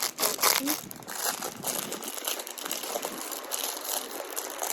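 Plastic wrapping crinkling and rustling as it is handled. It is densest in the first couple of seconds, then lighter.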